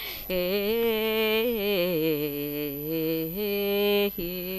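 A woman singing a Carnatic devotional prayer song solo, holding long melismatic vowels that slide and waver in pitch, with a brief break about four seconds in before the next held note.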